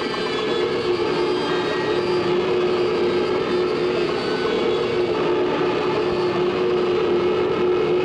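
Electroacoustic film score: a dense, steady machine-like drone with a held hum, swelling slightly over the first second or two.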